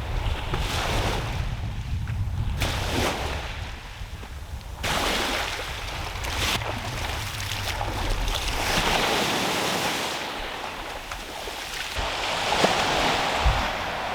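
Small waves breaking and washing up a beach, the surf swelling and fading every few seconds, with wind rumbling on the microphone during the first few seconds.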